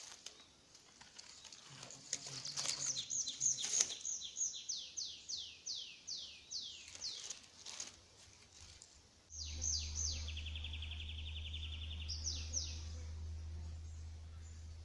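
Forest songbird singing: a run of quick notes that each slide downward, repeated for several seconds. Later comes a fast even trill framed by a few more downward notes. About nine seconds in, a low steady hum starts suddenly under the birdsong.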